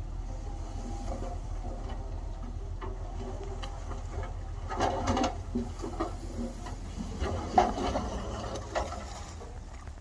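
Heavy earthmoving machinery running with a steady low rumble, with bursts of rattling and clattering about halfway through and a sharp knock about three quarters of the way in.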